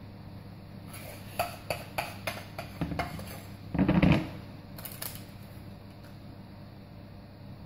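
Kitchen utensil clatter from a spoon working against dishes: a quick run of light clinks, then one louder clatter about four seconds in and a single clink a second later.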